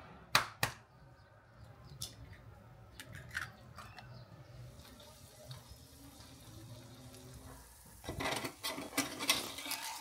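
Kitchen handling of a pan and utensils: two sharp clinks about half a second in, a few light taps, then a flurry of clatter and scraping in the last two seconds.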